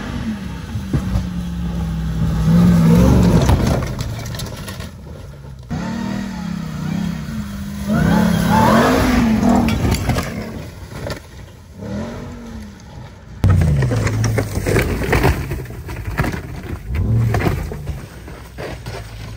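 Ram TRX pickup's supercharged 6.2-litre V8 revving up and down again and again while towing a caravan off-road, with abrupt cuts between bursts.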